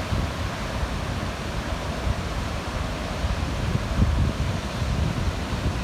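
Surf of a stormy sea washing onto the beach, with strong wind buffeting the microphone in a low, gusting rumble.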